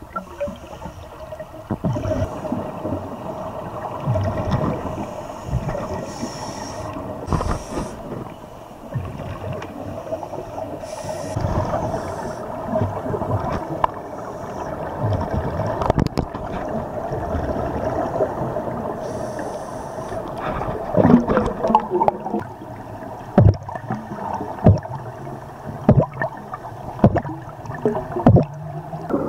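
Muffled underwater sound through a camera housing: scuba divers' exhaled bubbles gurgling over a steady hum. Several sharp knocks come in the last eight seconds or so.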